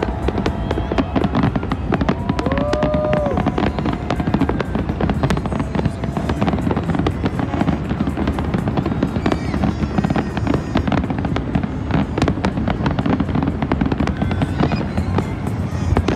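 Fireworks display going off, a rapid, continuous crackle of many shell bursts one after another over a low rumble.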